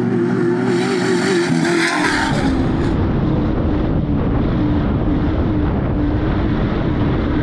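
Off-road race vehicle driving hard, its engine holding high revs with a slightly wavering pitch over a rushing noise; a deep rumble comes in about two seconds in.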